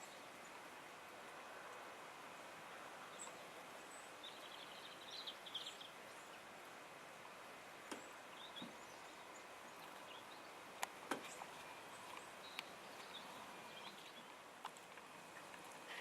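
Faint steady hiss of open-air background noise with a few short, high bird chirps, clustered about four to six seconds in, and a few sharp clicks later on.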